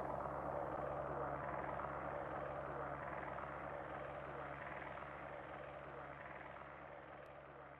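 Rushing whitewater of a waterfall, a steady noise that fades out slowly.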